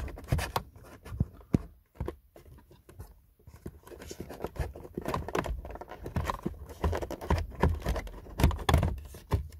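Plastic dashboard parts of a Seat Leon 5F, around its instrument cluster, handled by hand: irregular clicks, knocks and scrapes, quieter for a moment about two seconds in.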